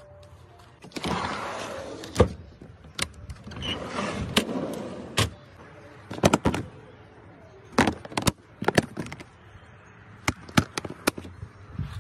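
Metal slide-out drawer in a pickup truck's bed rolling on its rails: two stretches of rattling rumble in the first five seconds, with many sharp knocks and clicks scattered through.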